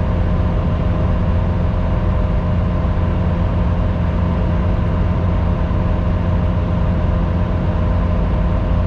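Skid steer engine running steadily with an even, unchanging drone, heard from the operator's seat.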